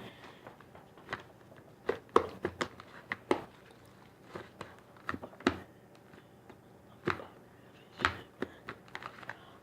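Homemade slime being kneaded and pulled apart by hand, giving irregular sticky clicks and small pops, some in quick clusters.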